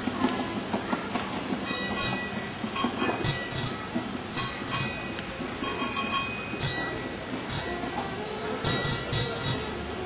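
Bicycle bells ringing in many short, bright rings at irregular intervals, over a low steady background rumble.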